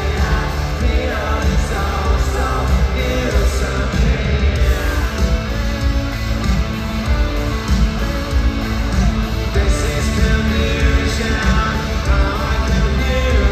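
Live rock band playing loud, with a singer, drums and a strong bass, heard through an arena PA.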